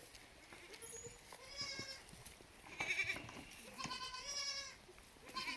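Goats bleating: about four high-pitched calls, the longest a little past the middle.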